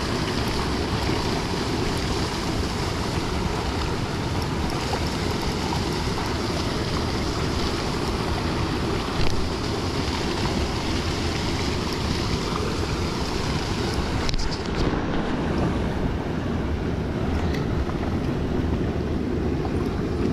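Steady wind noise buffeting the microphone, over the wash of river water. A brief bump about nine seconds in.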